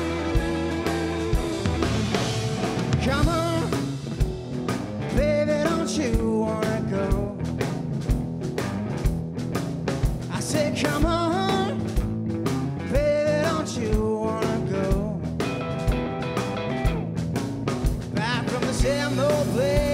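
Blues-rock band playing an instrumental break: electric guitar lead with bending notes over bass guitar and a drum kit keeping a steady beat.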